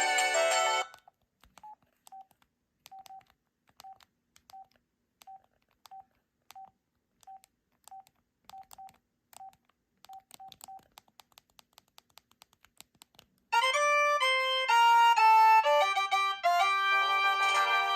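Sanyo SCP-8100 cell phone: a preloaded polyphonic ringtone cuts off just under a second in, followed by a string of short, single-pitch key beeps at irregular intervals as the phone's keys are pressed. About two-thirds of the way through, another polyphonic ringtone melody starts playing.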